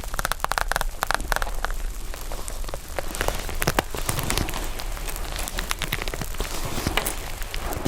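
Slime with foam beads being worked by hand, giving dense, irregular crackling and popping, busiest in the first couple of seconds.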